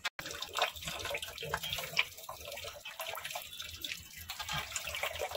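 Hands washing uncooked rice in a water-filled metal bowl: irregular swishing and sloshing of water as the grains are rubbed and stirred.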